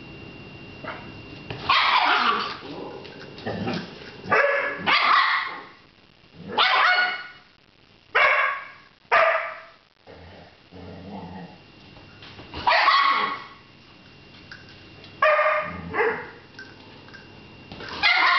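Rat terrier and German Shorthaired Pointer play-fighting: sharp barks and yips in about ten short bursts, with quieter low grumbling between.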